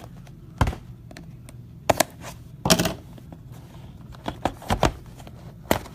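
A box being opened and its contents handled: a handful of sharp clicks and knocks at irregular intervals, with quiet between.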